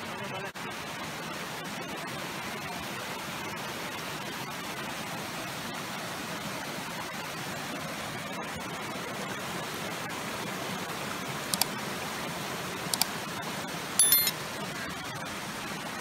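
Hot thermal spring water rushing and splashing over travertine limestone terraces and cascades in a steady, even rush. About two-thirds of the way through come a few brief high-pitched sounds, the last a little longer.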